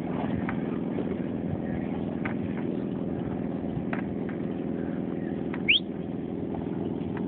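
Motorboat engine running steadily under the load of towing a parasail. A brief, high, rising chirp sounds about two-thirds of the way through.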